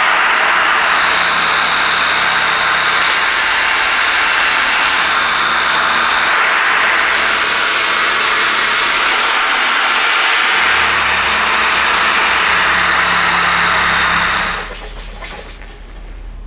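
Electric drill spinning a wire wheel brush against a cast steel lump hammer head: a steady, loud abrasive hiss with a high motor whine. It cuts off about two seconds before the end, leaving quieter rubbing and handling.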